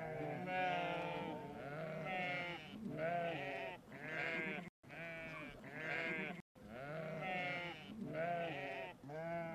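Sheep bleating, several calls overlapping one another almost without a break. Two very short gaps about midway, where the sound cuts out completely.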